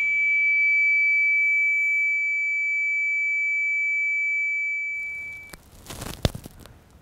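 A steady, high-pitched ringing tone, a film sound-design effect of the kind used for a character's disorientation. It holds for about five seconds and then fades out, leaving a faint hiss with one sharp click near the end.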